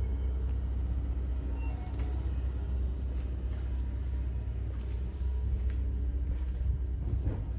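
Steady low rumble of a running vehicle or machine, with no sharp events.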